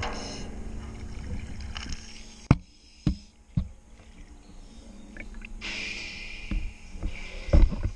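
Water sloshing and splashing as divers come up from underwater into an enclosed air pocket. There are three sharp knocks a little after two seconds in, and a hissing, splashing stretch with loud low thumps toward the end.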